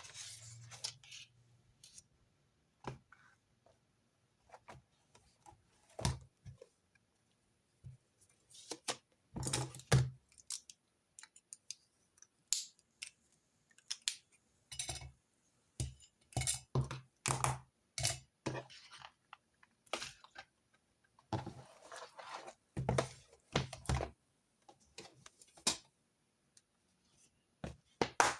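Desk sounds of handwritten note-taking: irregular clicks and taps of pens and stationery against the desk, with brief stretches of scratching and rustling.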